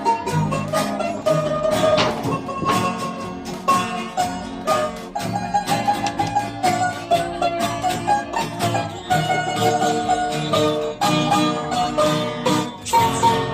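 Instrumental music played on plucked strings, with a quick run of short notes over a steady accompaniment.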